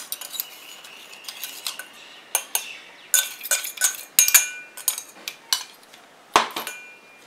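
Steel spoon scraping and tapping inside a stainless-steel mixer-grinder jar, scooping out ground spice, with a run of metallic clinks that ring briefly. Two louder clinks stand out, about four seconds in and near the end, the second as the steel jar is set down.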